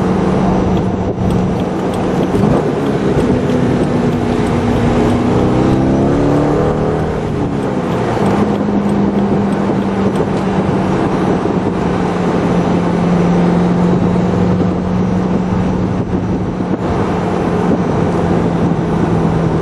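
Car engine and road noise heard inside the cabin while driving, through a camcorder's built-in microphone. The engine note climbs a few seconds in, drops back after about eight seconds, then holds steady and sinks slowly toward the end.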